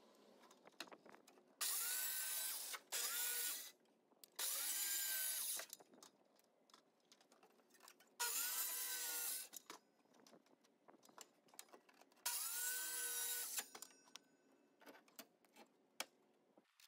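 A power drill run in five short bursts of about a second each, the motor pitch rising as it spins up and falling as it stops, with small clicks between the bursts.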